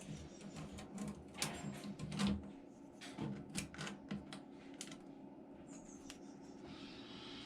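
Light irregular clicks and taps of a pencil and a trowel used as a straightedge being handled on a panel covered in masking tape, then a brief scratch of the pencil drawing a line near the end.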